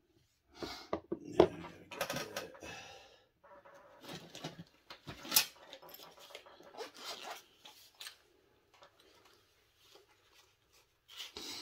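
Hands handling small tools and plastic RC transmission parts on a workbench: irregular clicks, knocks and rustling, with a sharp knock about a second and a half in and another about five seconds in.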